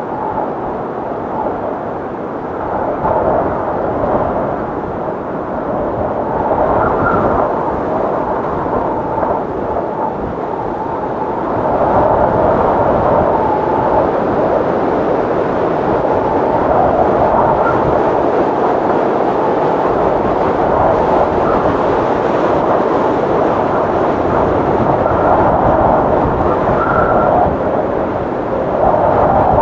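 Strong wind howling in gusts: a steady rush with hollow, moaning tones that swell and fade and short high whistles now and then. It grows louder about twelve seconds in and eases briefly just before the end.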